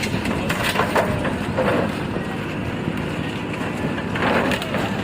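Engine of the slab-pouring machinery running steadily, with scattered knocks and clatter of concrete work over it.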